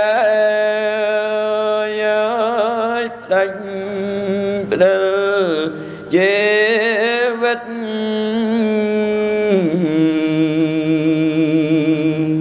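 A Cambodian Buddhist monk chanting smot, the melodic Khmer recitation sung for the dead, solo male voice into a microphone. He holds long, slowly wavering notes, with short breaks for breath.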